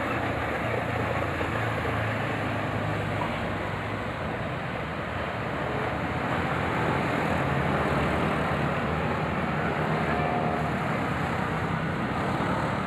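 Road traffic noise with a heavy vehicle's engine running: a steady low rumble and road noise that swells a little around the middle.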